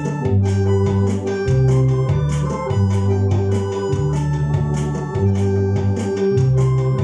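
Two-manual electronic organ played with both hands: sustained chords over a bass line that changes every second or so, with a steady built-in drum beat.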